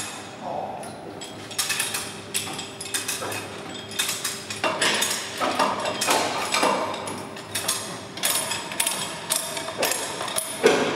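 A run of irregular sharp metal knocks and clanks from a hand tool working at steel fittings on a Strv 103 tank's deck.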